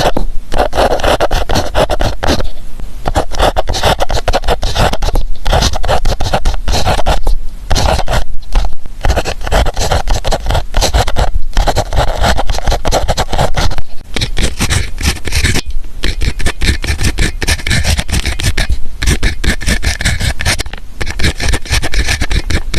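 Close-up scratching of a pen on paper, in runs of strokes broken by short pauses.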